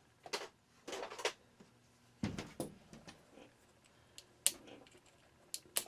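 Irregular sharp clicks and taps of hands working a plastic Christmas-light socket, prying it apart to find a wiring fault; the loudest knocks come about two seconds in and near the end.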